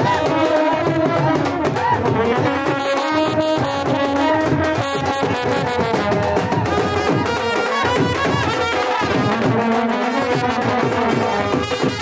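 Brass band of trumpets playing a melody over a barrel drum beating a steady rhythm.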